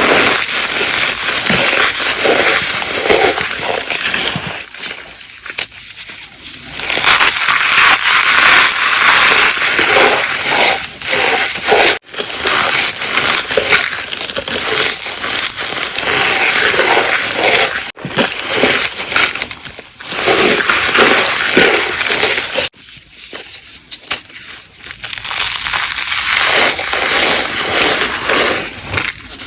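Blocks of gym chalk being crushed and squeezed by hand, a dry crunching and crackling with squeaks, in several short takes that cut suddenly from one to the next.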